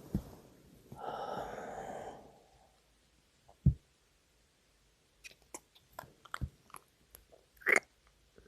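Close-miked mouth sounds from a man: a breathy exhale about a second in, a short low thump, then a run of wet kisses and lip smacks, one louder near the end.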